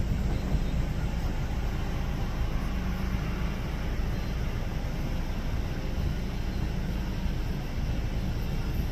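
Distant Boeing 737-800's CFM56 jet engines running at taxi idle: a steady low rumble and hiss, with wind rumbling on the microphone.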